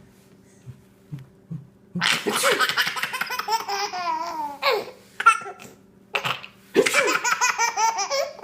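A young child laughing hard in two long bouts, the first starting about two seconds in and the second near the end. A short, sharp burst falls between the bouts.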